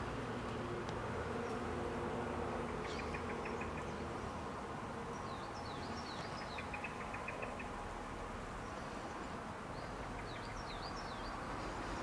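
Garden ambience: a steady low buzzing hum, like a flying insect, that fades after the first few seconds, with small birds chirping in short quick bursts a few times.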